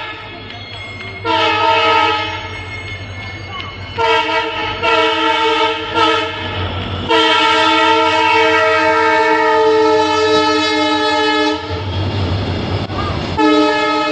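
WDG4 diesel-electric freight locomotive's horn sounding again and again: several short blasts, then one long blast of about four and a half seconds, then another short blast near the end. A low rumble from the moving train runs between the blasts.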